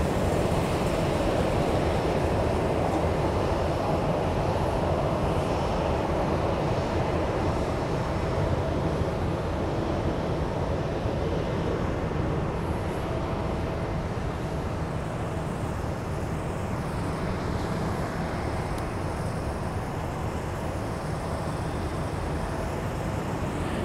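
Steady airport apron noise from running aircraft and ground equipment: a continuous mechanical rumble with a faint steady whine, easing off slightly in the second half.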